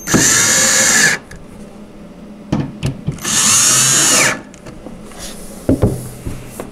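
Cordless drill driving two screws in turn, a run of about a second each, about three seconds apart, with the motor's pitch bending as each screw seats. The screws tighten the top panel of a particleboard shelf unit; a few light knocks come between the runs.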